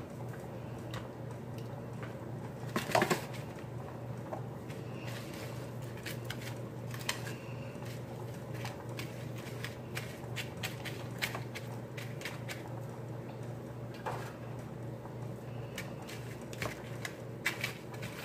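Hand-breading shrimp: scattered light taps, clicks and crunches as fingers and a fork work in plastic bowls of beaten egg and crushed cheese-puff crumbs, with a louder clatter about three seconds in. A steady low hum runs underneath.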